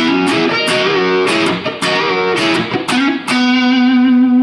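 Electric guitar playing a rhythmic lick in E major pentatonic: a quick run of picked notes, some bent up and down in pitch, ending on a long held note.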